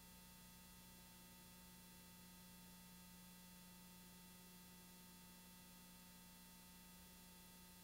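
Near silence: only a faint steady hum and hiss, with no other sound.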